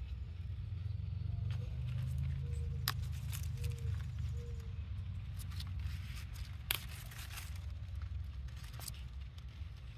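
Leafy vegetable shoots being snapped and picked by hand: a few sharp snaps and light rustling of leaves, over a low steady rumble on the microphone.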